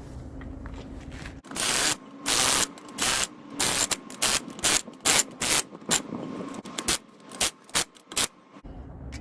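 Power impact wrench running wheel lug nuts down in about a dozen short bursts, the first few longer, over a faint steady hum.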